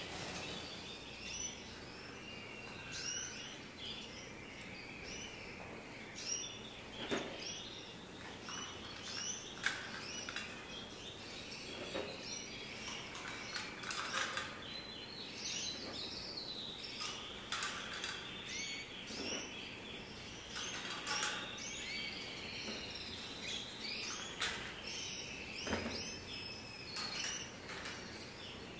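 Many canaries chirping and calling together, short overlapping calls with a few knocks among them.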